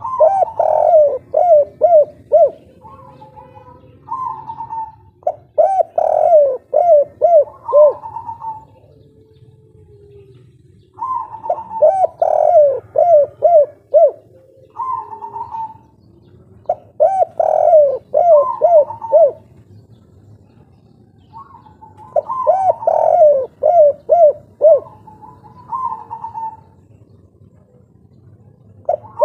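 Spotted dove (derkuku / tekukur) cooing its 'kuk 3' song. It gives phrases of several short rising-and-falling coos, repeated every few seconds with pauses between them.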